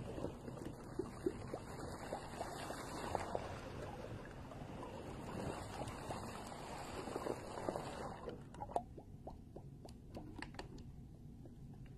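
Aquarium water bubbling and trickling, dotted with small pops. About eight seconds in the bubbling stops and only a few separate clicks remain.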